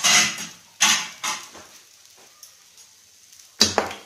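Ghee sizzling in short spurts on a hot iron tawa under a cooked aloo paratha, three spurts in the first second and a half, then a sharp knock near the end.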